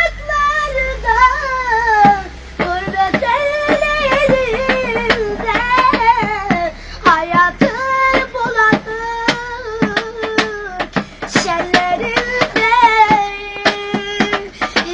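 A young boy singing a Turkish song in long, wavering held notes, with sharp percussive taps keeping a beat throughout.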